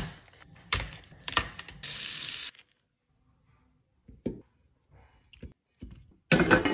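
A head of cauliflower being broken apart by hand: a few sharp cracks and a crunchy tearing as florets snap off. Then a few soft knocks as a steamer insert and florets are set into a pot, and near the end a loud rush as running tap water starts.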